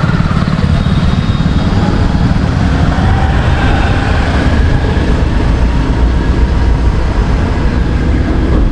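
Busy street traffic: motor vehicles running past in a steady, loud low rumble, with faint drawn-out tones in the background.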